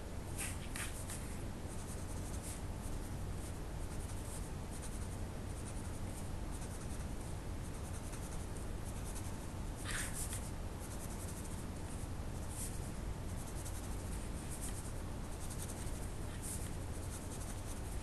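Pen scratching on paper in short, scattered drawing strokes, the clearest about ten seconds in, over a steady low hum.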